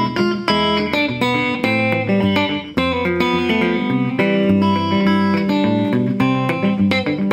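Gretsch hollow-body electric guitar fingerpicked Travis-style: an alternating thumb bass keeps a steady pulse under melody notes plucked on the higher strings.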